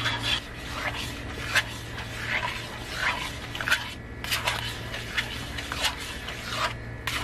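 Wooden spatula stirring and scraping thick, bubbling rice-and-palm-jaggery halwa batter in a wide steel pan, with irregular wet plops, squelches and scrape clicks over a steady low hum.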